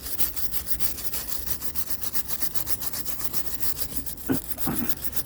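Hand wire brush scrubbing rust and old paint off iron railings in quick, even back-and-forth strokes, several a second.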